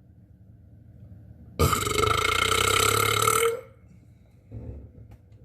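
A single long, loud burp, about two seconds long, starting a little over a second and a half in.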